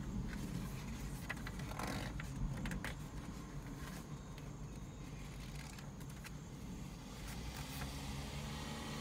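Steady low outdoor rumble with a few faint scattered clicks.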